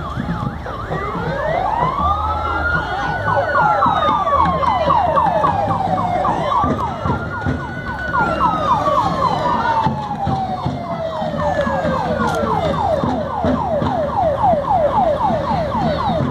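Two emergency-vehicle sirens sound at once. One wails in slow cycles, climbing over about two seconds and then falling away over several seconds, twice. The other yelps in a quick run of short sweeps, several a second. A low vehicle-engine rumble runs underneath.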